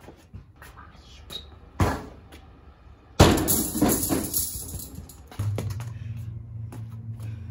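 A few scattered knocks, then a sudden loud crash about three seconds in that rings on for a second or so, followed by background music with a steady low bass note.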